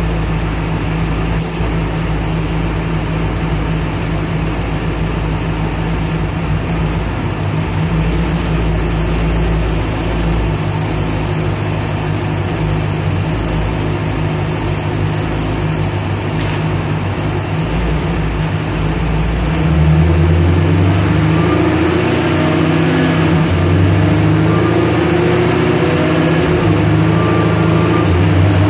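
Supercharged Gen V Camaro SS 6.2-litre V8, with a custom cam, Magnuson TVS2300 supercharger and Kooks headers, running steadily on a chassis dyno. About two-thirds of the way through its speed rises a little and it runs louder, holding there rather than sweeping up as in a full-throttle pull.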